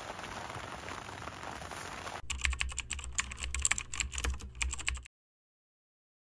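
Rain falling steadily on the fabric of a tent, cut off after about two seconds by a typing sound effect: about three seconds of rapid keyboard clicks as a caption types itself out.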